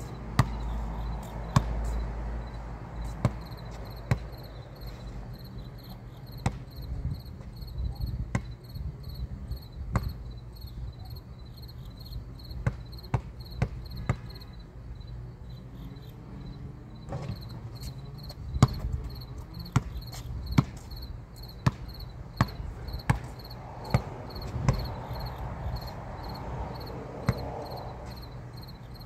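A basketball bouncing on a concrete court: irregular single bounces and short runs of dribbles. Insects chirp throughout in a steady, evenly pulsed trill.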